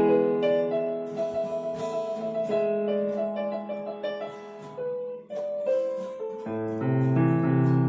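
Piano music: held chords under a slow melody of single notes, with a deeper bass chord coming in near the end.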